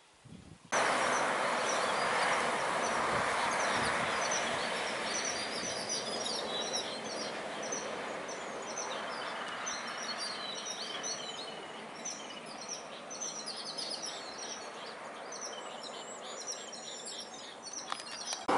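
Many birds chirping rapidly over a steady background hiss that starts abruptly just under a second in and slowly fades a little.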